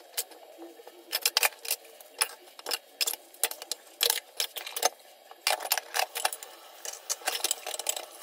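Dishes and utensils clinking and knocking together at an irregular pace as they are handled while washing up by hand.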